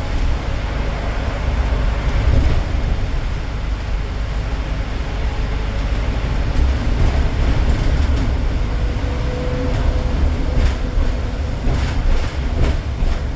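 Inside a moving city bus: steady low engine and road rumble, with a few sharp rattling clicks near the end.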